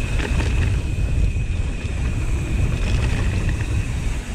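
Wind rumbling on the microphone of a camera riding on a mountain bike as it rolls down a dirt trail, with tyre and ground noise and a faint steady high tone over it.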